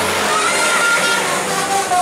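Tour bus's 'telolet' musical horn playing a tune of held notes, stepping down in pitch toward the end.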